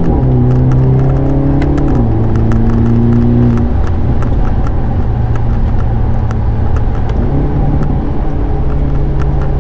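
2023 Hyundai Elantra N's turbocharged 2.0-litre four-cylinder engine and exhaust under way, heard from inside the cabin, with scattered exhaust pops and crackles. The engine note holds steady, drops lower about two seconds in and fades out near four seconds, leaving a steady engine and road noise.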